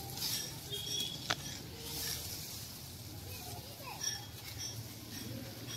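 Leaves and stems rustling as someone pushes slowly through undergrowth, with brushing against the microphone. Faint short bird chirps come and go, and there is one sharp click about a second in.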